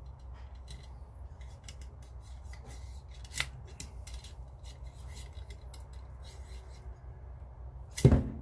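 Rapid light scraping and clicking of a cleaning rod and patch being worked through the bore of a .22 rifle, with one sharp click a few seconds in and a loud knock near the end.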